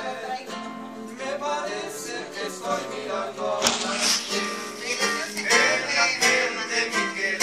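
Live acoustic guitars strummed and plucked by a small group of musicians, with voices singing along.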